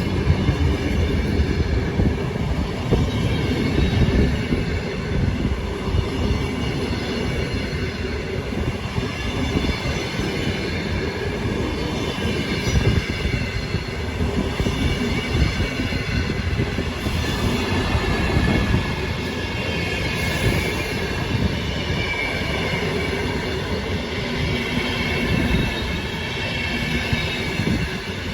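A train moving through the station: a steady rumble of wagons on the track, with high squealing tones from the wheels on the rails.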